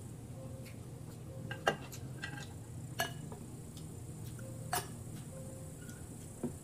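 Chopsticks and a spoon clinking against a glass bowl and dishes: four sharp clinks, some with a short ring, spread over a steady low hum.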